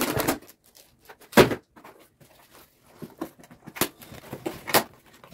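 Cardboard packaging box being handled and opened: a few short knocks and bumps with light scraping in between.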